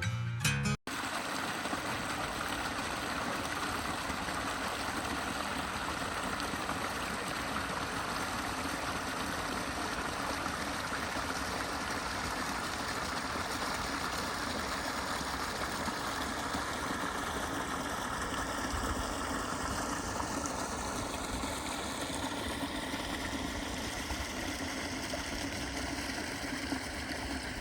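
Water of a small creek running steadily: an even, unbroken rush of flowing water.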